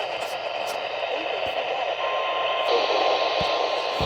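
Static hiss from a NOAA Weather Radio receiver on a weak signal. About halfway through, a faint steady tone near 1 kHz comes in under the hiss and holds.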